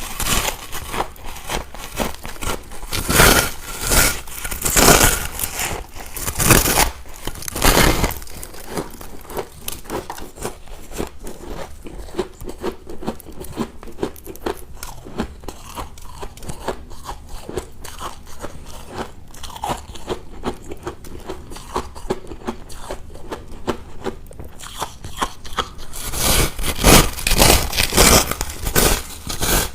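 Ice cubes being bitten and chewed close to the microphone: a run of loud crunches, then several seconds of quieter grinding chewing, and loud crunching again near the end.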